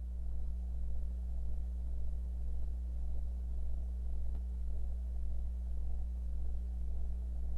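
Steady low electrical hum with faint hiss; no other sound is on the soundtrack.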